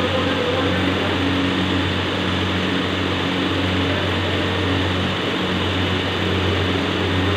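Hydraulic pipe-drawing machine's power pack running, giving a steady motor-and-pump hum.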